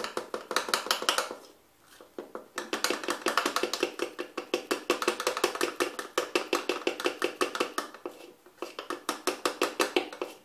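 A spoon beating a thin flour batter in a plastic measuring jug, a rapid run of clicking, tapping strokes against the jug's sides, several a second. The stirring pauses briefly about two seconds in and again near eight seconds. The batter is being whisked smooth to a very watery consistency.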